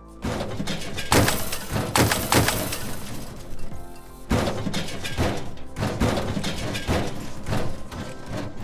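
Sound effects of a wall smashing and crumbling into debris, with several heavy crashes, over a music sting.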